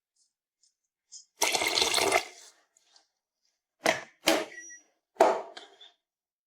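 Water pouring and splashing: one pour of just under a second, then three short splashes.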